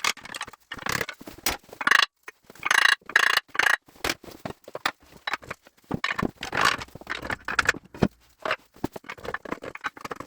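Metal scraping and knocking as a Gardner 2LW diesel's clutch pressure plate is worked off its corroded studs, binding as it goes.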